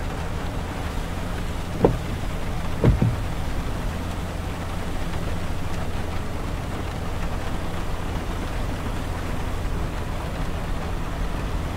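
Car driving on a wet highway in heavy rain, heard from inside the cabin: a steady low rumble of engine and tyres on wet road, with rain on the windshield and roof. Two short thumps stand out, about two and three seconds in.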